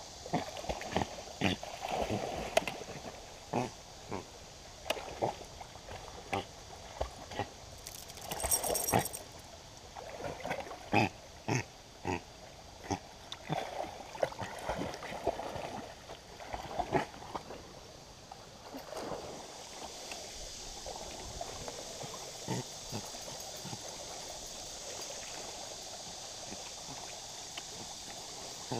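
Yorkshire terriers swimming and splashing through shallow river water: a run of short splashes and sloshes over the first two-thirds. After that comes the steady rush of the stream flowing over rock.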